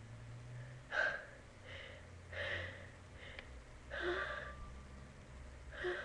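A person's quick, breathy gasping inhales and sniffs, about five spread over a few seconds: the build-up of a sneeze being held back.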